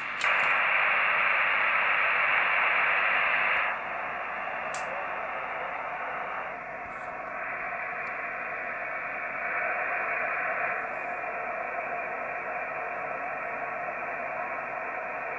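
Single-sideband receiver hiss from amateur radio transceivers with no station coming through: loud for about the first four seconds, then a lower steady hiss as the Icom IC-910 is tuned around 1296.220 MHz for the other station's call. A single click comes about five seconds in.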